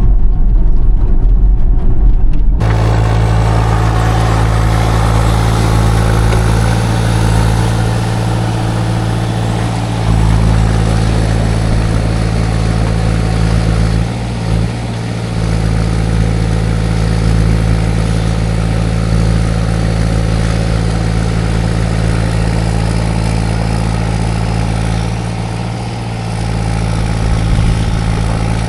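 Mini excavator's diesel engine running steadily under load as the machine travels. About two and a half seconds in the sound changes abruptly from a heavy low rumble to a fuller, brighter engine noise.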